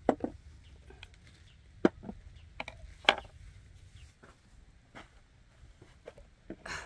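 A glass jar set down on a wooden table with a sharp knock, followed by scattered light knocks and clicks of tableware and a wooden tray being handled.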